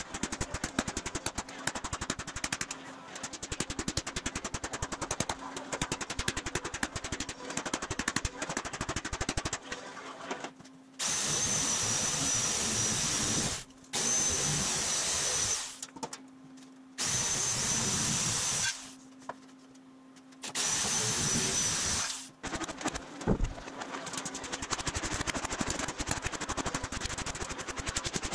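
Sheet-metal shop work on aluminum panels: a machine hammering in rapid strokes over a low steady hum, interrupted four times by one- to three-second bursts of a power tool running with a high whine.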